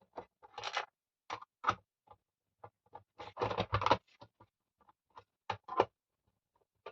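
Irregular clicks, knocks and clatter of a mixer grinder's hard casing and parts being handled and pulled apart during disassembly, with a denser bout of rattling and scraping about halfway through.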